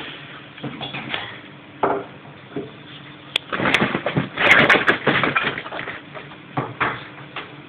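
Crinkling and rustling of a deflated plastic inflatable sheep as a small dog bites, tugs and drags it. The rustling comes in irregular bursts, loudest about four to five seconds in, with a few sharp clicks among them.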